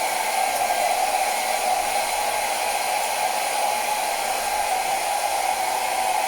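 Hair dryer running steadily, blowing on wet acrylic paint to dry it.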